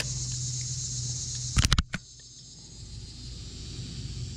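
Steady high-pitched insect buzz, with a quick cluster of four or five sharp knocks about a second and a half in, after which the buzz is fainter.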